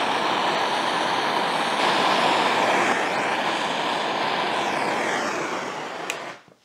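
Handheld gas torch flame hissing steadily while it melts aluminium filler rod onto a broken outboard skeg. Near the end there is a short click, and the hiss stops.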